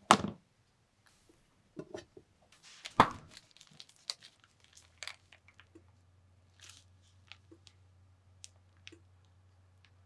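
Close handling sounds: a sharp knock at the start and another about three seconds in, then scattered small clicks and the crinkle of a plastic piping bag being squeezed as whipped cream is piped, over a faint low hum.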